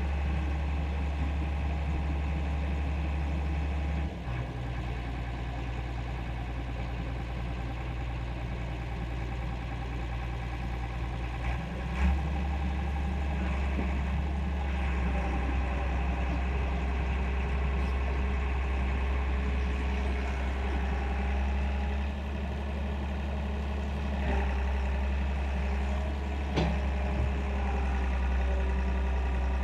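Excavator's diesel engine running steadily while it digs, its note shifting several times as the load changes, with a few short clunks.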